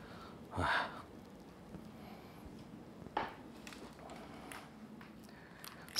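A quiet room with a few scattered household knocks and clicks. A short dull thump comes under a second in, and a sharper click a little after three seconds.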